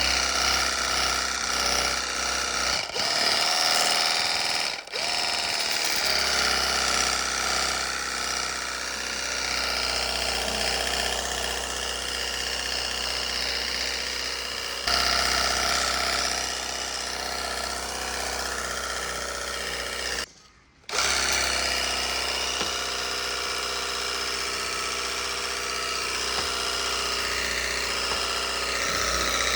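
Cordless portable pressure washer's electric pump running with a steady whine while it sprays water through a wide-angle nozzle. The pump drops out briefly a few times, with one half-second stop about twenty seconds in, as the trigger is let go.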